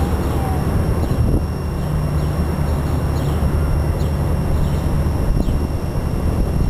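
Wind buffeting the microphone: a steady low rumble with a hiss over it, no pitched engine note.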